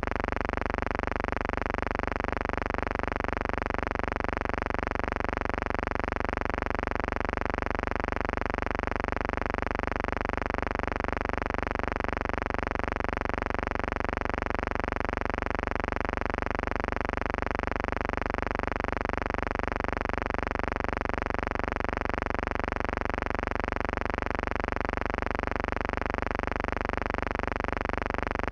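A steady, unchanging electrical buzz with many evenly spaced overtones, pulsing faintly and regularly.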